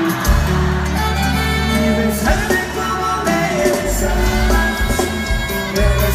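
Norteño band playing live through a PA system, with a deep bass line, drums and guitars, heard from the audience.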